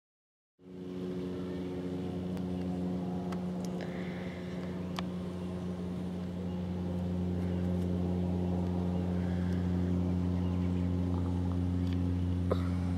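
Garbage truck engine running steadily, a low even hum that cuts in just after the start and grows slightly louder about halfway through.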